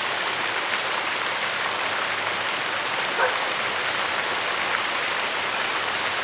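Steady rain falling, with a few separate drops ticking.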